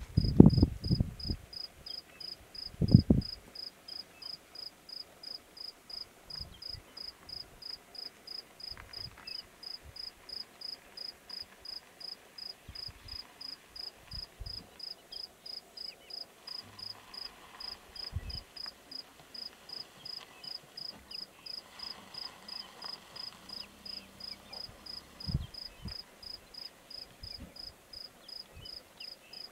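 Insect chirping steadily in a high, even rhythm of about three pulses a second. A few loud low thumps come in the first few seconds.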